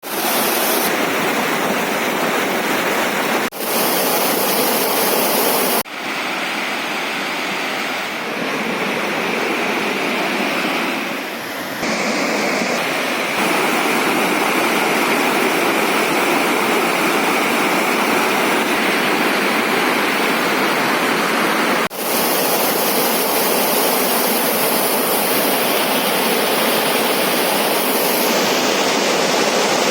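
Waterfall: a steady, loud rush of falling water. It breaks off for an instant three times and resumes with a slightly different sound.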